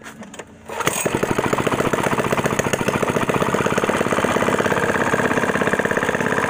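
Harbor Freight Predator 212cc (6.5 hp) single-cylinder four-stroke engine pull-started, catching under a second in and then running steadily and loud.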